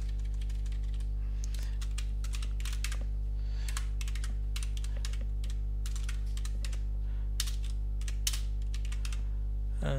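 Computer keyboard typing: irregular keystrokes, with a few louder clacks near the end, over a steady low hum.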